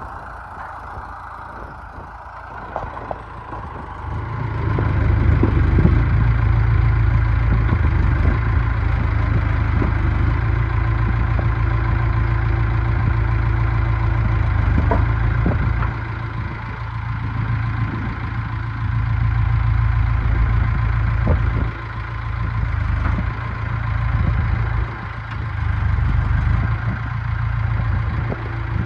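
Bulldozer's diesel engine running steadily with a low drone, growing much louder about four seconds in and then holding, with a few brief dips in level.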